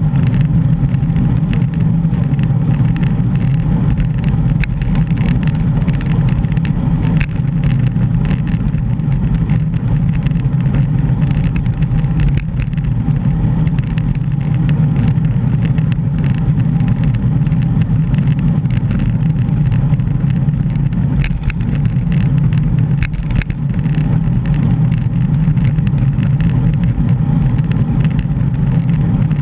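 Steady low rumble of wind buffeting the microphone of a bike-mounted GoPro while riding, mixed with road noise.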